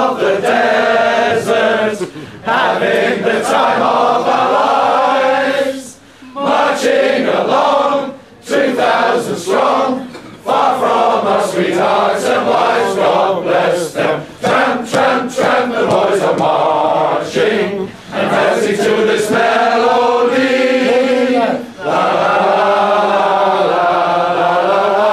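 A crowd of men singing together in unison, line by line, with short breaks between phrases.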